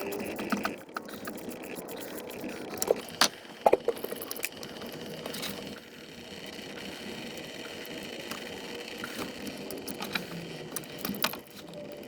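Metal hand tools clinking and clicking against the engine while the thermostat housing is being unbolted, with a few sharp metallic knocks about three to four seconds in, over a faint steady hum.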